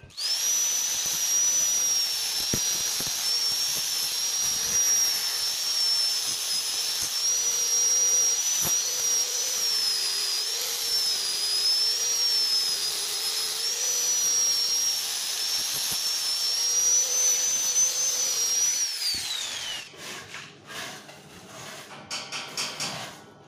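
Angle grinder starting up with a high whine and grinding down the weld beads on a welded steel hinge, its pitch dipping and wavering as the disc is pressed on. Near the end it is switched off and winds down with a falling whine, followed by a few light knocks.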